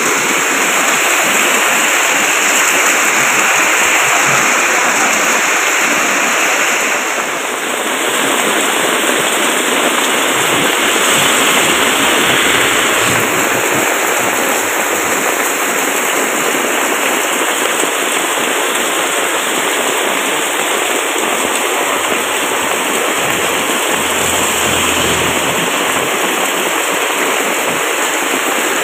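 Heavy tropical downpour: a dense, steady hiss of rain pouring down.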